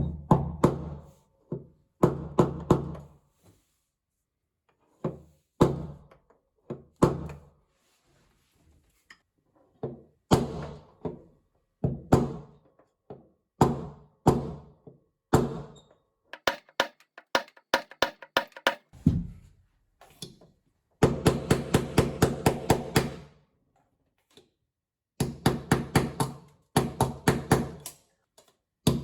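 Hammer blows on metal, each ringing briefly, in irregular groups, with a quick run of many blows about two-thirds of the way through.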